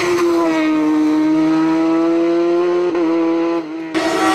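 Silver Car S2 hillclimb race car's engine running at high revs through a corner, its pitch dipping slightly and then holding steady. The sound drops away briefly about three and a half seconds in, then comes back loud just before the end.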